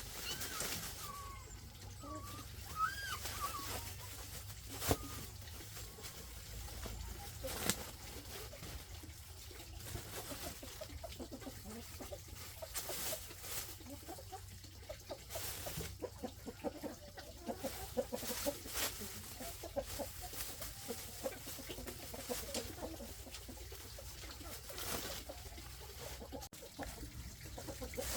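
A flock of farm poultry calling: a few higher gliding calls at first, then a long run of many short, rapid low calls. A few sharp knocks sound through it.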